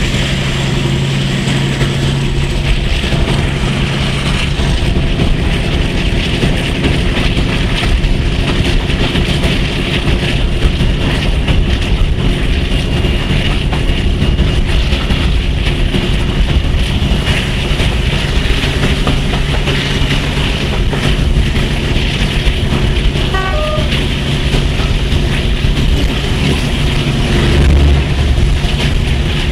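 The twin Maybach V12 diesel engines of the Class 42 Warship locomotive D821 running steadily as it hauls the train, heard from a carriage behind with wheel and rail noise. Near the end the sound swells and deepens as the train enters a tunnel.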